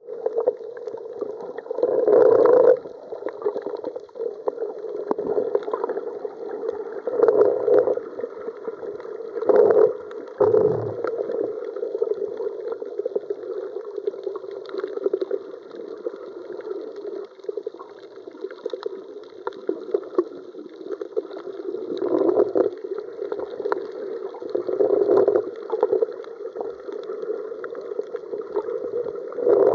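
Underwater ambience heard through a camera's waterproof housing: a steady, muffled water rush with louder swells every few seconds.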